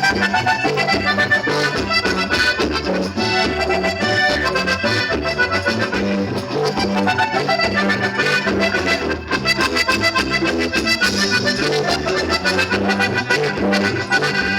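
Instrumental break of an accordion-led Latin song: the accordion plays the melody over a bass line that pulses to a steady beat, with no singing.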